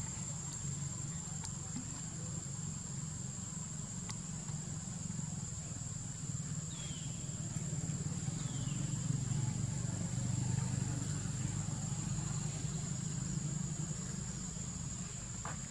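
Outdoor ambience: a steady low rumble under an even, high-pitched drone, with two brief faint falling squeaks about seven and eight and a half seconds in.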